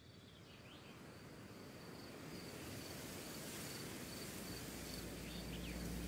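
Nature ambience fading in and growing louder: an insect chirping in short, high pulses about twice a second over a faint haze, with a couple of brief falling calls about a second in and near the end.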